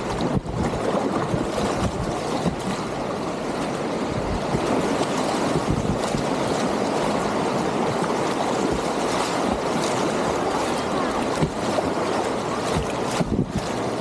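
Whitewater rapids rushing around a kayak running the river, a steady, dense wash of water noise that dips briefly about half a second in and again near the end.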